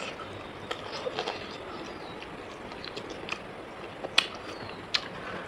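Close-up chewing and mouth sounds of a person eating rice and pork, with scattered short clicks; the two sharpest come about four and five seconds in.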